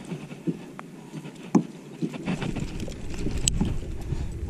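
Scattered clicks and knocks of a landing net, a hooked fish and gear being handled in a kayak while the hook is worked out. From a little past halfway a low rumble sits on the microphone.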